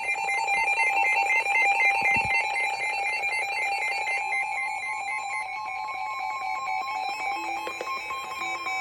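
Emergency Alert System attention signal: a loud electronic alarm of paired tones switching rapidly back and forth. A steady single tone joins about four seconds in.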